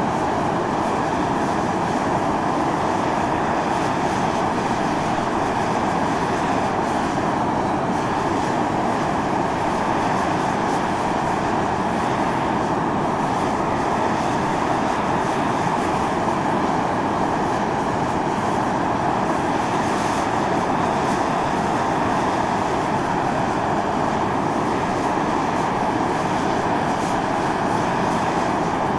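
Volcanic fumarole vents blowing out steam and gas: a steady, unchanging rush of noise, heavier and deeper than a thin hiss.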